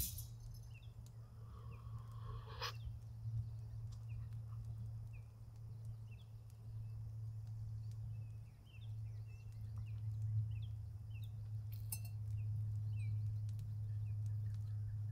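Small animals calling in many short, high chirps, scattered irregularly over a steady low hum. A quick cluster of light clicks comes about twelve seconds in.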